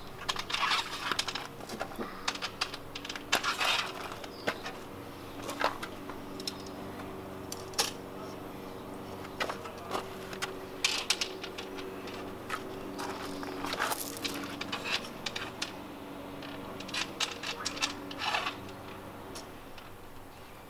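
Scattered metallic clinks, knocks and scrapes of a bag awning and its mounting bolts being handled and lined up against the brackets on a van, over a faint steady hum.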